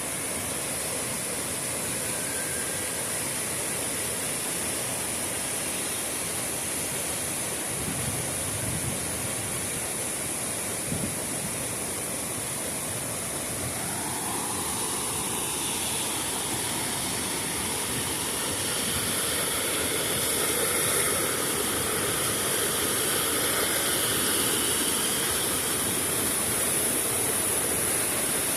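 Waterfall rushing, a steady roar of falling water that grows a little louder about two-thirds of the way through.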